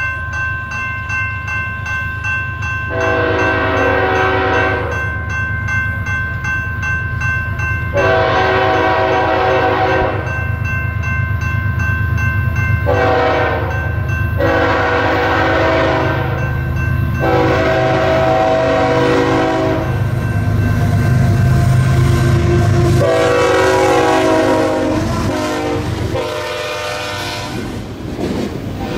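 A BNSF GE ES44C4 diesel locomotive approaches and passes, sounding its multi-chime air horn in a series of long and short blasts. The engine's rumble grows loudest as the locomotive goes by, near the end, and the rattling roll of the auto rack cars follows.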